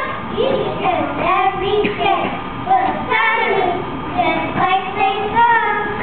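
Young children's voices reciting a poem together in a sing-song chant.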